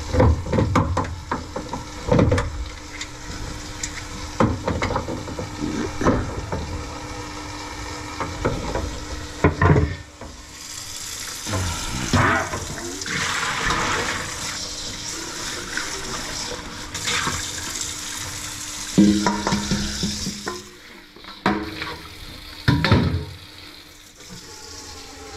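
A run of knocks and clatter, then water running from a kitchen faucet into the sink for about ten seconds, followed by a few more knocks.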